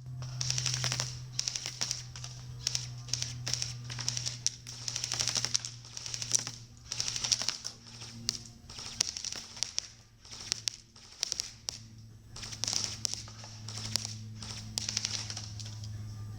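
Airsoft guns firing in repeated rapid bursts: quick strings of snapping shots, each lasting up to about a second, with short pauses between. A steady low hum runs underneath.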